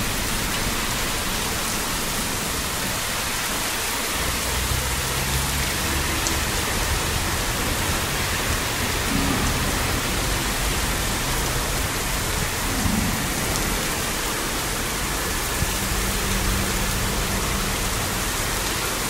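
Heavy thunderstorm rain pouring down steadily on pavement, grass and trees, with water running over the flooded ground.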